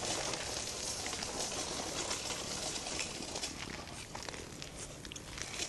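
Faint outdoor background hiss with scattered light rustles and ticks.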